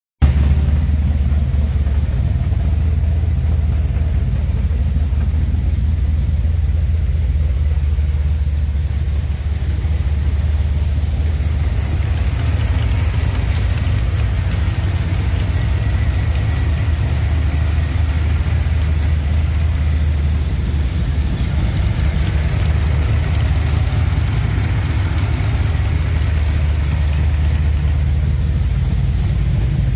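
BluePrint 383 stroker small-block Chevrolet V8 idling steadily.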